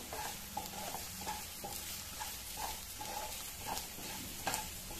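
Chopped onions and green chillies sizzling in oil in a nonstick kadai, with a wooden spatula stirring and scraping the pan in short repeated strokes; a couple of sharper knocks about four and a half seconds in.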